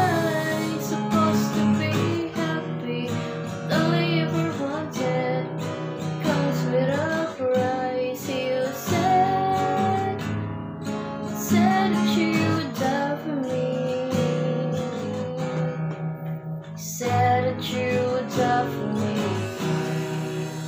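Acoustic guitar strummed in chords, with a voice singing the melody over it; the playing breaks off briefly about three-quarters of the way through.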